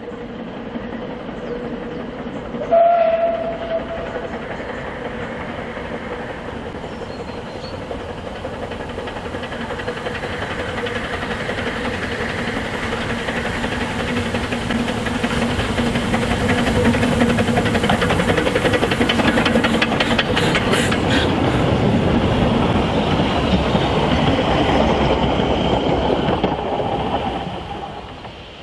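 Narrow-gauge steam train on the Ffestiniog Railway, with a short whistle blast about three seconds in. The running noise grows louder to a peak in the second half as the train passes, with wheel clatter, then drops away near the end.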